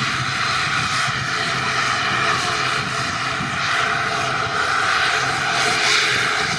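ATR 72 twin-turboprop airliner's engines running at taxi power close by: a steady high whine over a low propeller drone.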